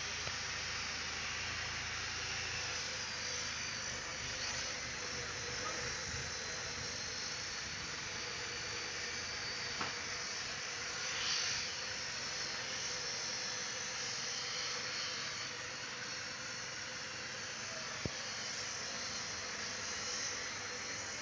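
Hydra mobile crane's diesel engine running steadily as it lifts a concrete mixer machine, heard as an even hiss with a low rumble, a brief louder rush about eleven seconds in and a couple of faint clicks.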